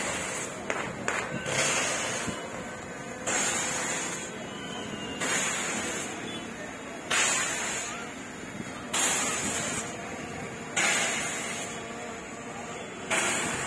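A series of celebratory confetti blasts, a sudden hissing burst about every two seconds that fades before the next, over crowd chatter.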